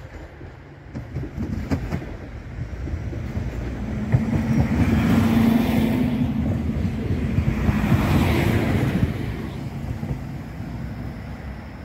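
Koleje Dolnośląskie SA139 diesel multiple unit passing close by: a steady low engine hum and rail and wheel noise build up, are loudest as it goes past around the middle, then fade as it moves away.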